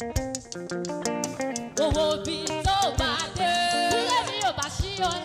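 Live Yoruba gospel praise music: a band with drums, guitar and talking drums playing, and a woman's lead voice comes in singing about two seconds in.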